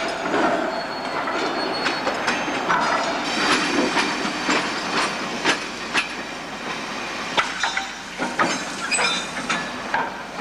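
Shunted British Rail freight wagons and a brake van rolling through the yard, wheels clattering and squealing on the rails, with a run of sharp knocks.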